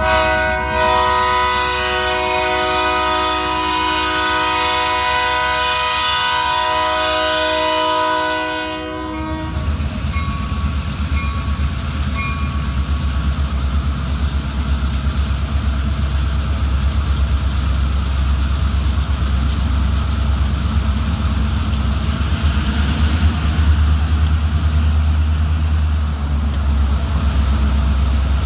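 Diesel freight locomotive's multi-note air horn sounding one long chord that stops about nine seconds in. After it, the locomotives' diesel engines rumble low and steady, growing a little louder as the train approaches.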